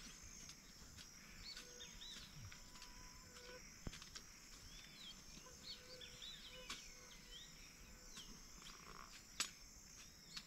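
Faint outdoor ambience of many small birds chirping over a steady high-pitched insect drone, with a couple of sharp clicks, the loudest near the end.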